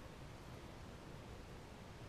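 Faint steady hiss of room tone, with no distinct sounds.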